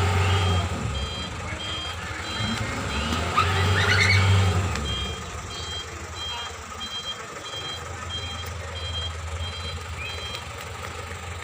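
A vehicle's reversing alarm beeping about one and a half times a second over the rumble of its engine, which runs louder at the start and again about three to four seconds in; the beeping stops near the end.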